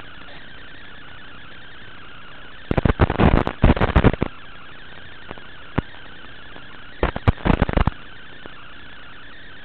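Steady static hiss from an analog FPV video receiver's audio channel, recorded by the DVR, broken by two bursts of harsh crackling static, one about three seconds in lasting a second and a half, the other about seven seconds in.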